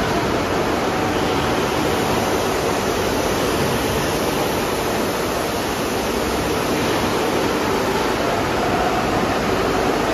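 Steady, loud, even hiss and hum of factory machinery in a steel-bar workshop. There are faint steady tones in it and no distinct knocks or pauses.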